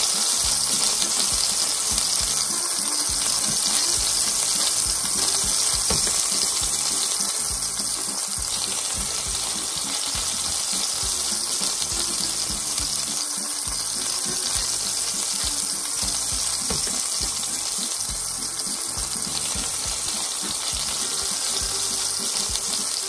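Slices of zucchini, yellow squash, eggplant and tomato sizzling steadily in hot oil in a stainless steel frying pan.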